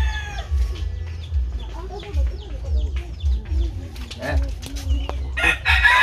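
Roosters crowing: one crow trails off at the start and another loud crow begins near the end, with quieter chicken clucking in between.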